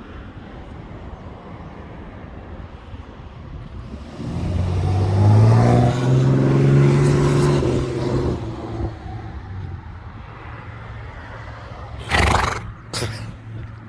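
A vehicle passes by, its engine hum and tyre noise swelling and fading over about four seconds, the hum rising and then dropping in pitch. Near the end a horse sneezes twice, two short sharp blasts of air less than a second apart.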